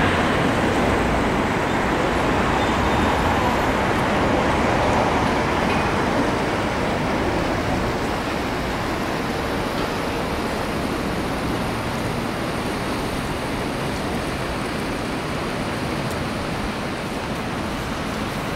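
Steady rushing roar of the river Ebro in flood, fast, high water streaming past with no separate events, easing slightly after about seven seconds.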